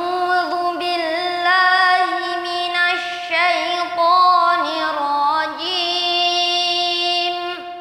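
A child's voice reciting the Quran in a melodic, drawn-out tilawah style, holding long ornamented notes. It breaks briefly twice and fades away near the end.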